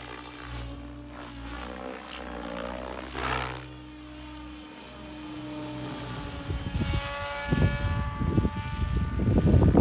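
Radio-controlled electric helicopter flying overhead: its rotor and motor give a whine that bends up and down in pitch as it manoeuvres. From about halfway in, wind buffeting the microphone grows louder over it.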